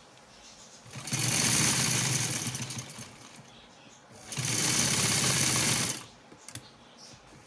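Black domestic sewing machine running in two short stitching runs of about two seconds each, with a pause between, as a dark fabric strip is fed under the needle. A few light clicks follow while the cloth is handled.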